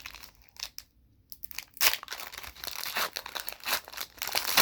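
Panini Prizm card pack wrapper being torn open and crinkled by hand: crackling rustles, a brief lull about a second in, then a dense flurry of crinkling.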